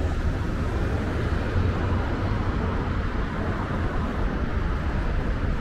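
City street ambience: a steady low rumble of passing traffic with no distinct single event.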